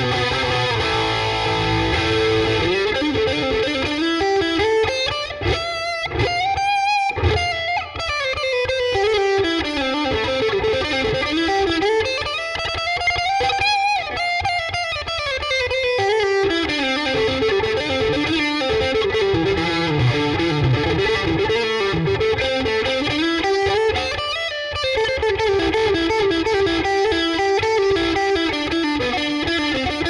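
Lavish XG-1S electric guitar played through a distorted tone: fast single-note runs that climb and fall in pitch in repeated sweeps.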